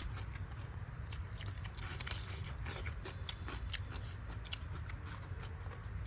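A person chewing and biting food close to the microphone: many small, irregular crunches and wet clicks, over a steady low hum.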